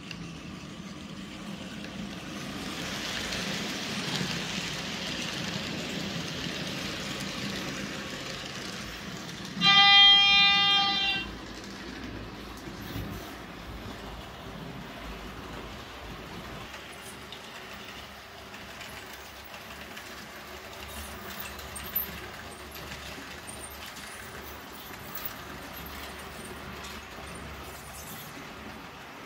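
Märklin H0 model TGV Duplex running along the layout track with a steady rolling noise. About ten seconds in, a model train's horn sounds one long note lasting about a second and a half, the loudest sound here. A lower steady running noise follows, with a single sharp click later on.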